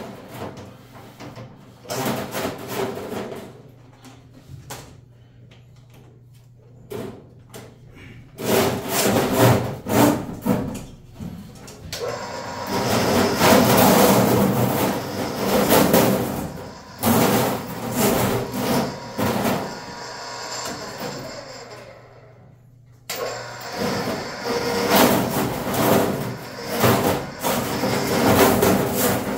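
Ridgid K-50 sectional drain-cleaning machine spinning its cable into a clogged toilet drain stack, the cable clattering and rattling in the pipe. The rattling is sparse at first, then dense and nearly continuous, and breaks off briefly a little before the end before starting again.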